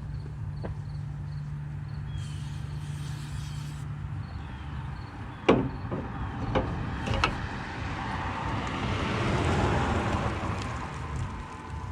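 A few sharp metallic knocks, the first the loudest, then a passing vehicle whose rush swells and fades, over a steady low hum.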